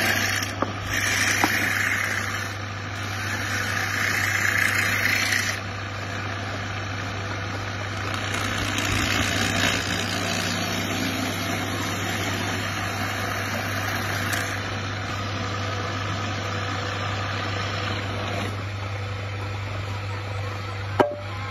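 Wood lathe's electric motor running with a steady hum while a hand tool scrapes the turning cricket bat in several stretches during the first half.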